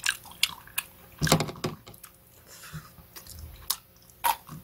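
Close-up eating sounds: a person biting and chewing meat pulled off boiled bones, with irregular wet mouth clicks and smacks and a louder burst of chewing about a second in.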